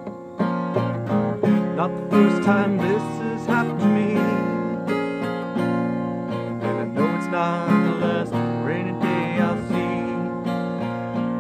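Fender Sonoran acoustic guitar strummed in a slow country song, with a man's voice singing over it.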